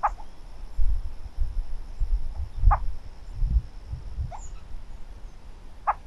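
Four short, sharp animal calls, spaced irregularly over about six seconds, over a low, patchy rumble.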